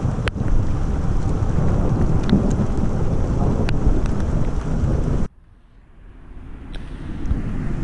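Heavy rain in a thunderstorm, with a low rumble of thunder and the odd sharp tick of drops landing close by. The sound cuts off abruptly about five seconds in, and after a short lull a low wind rumble builds up.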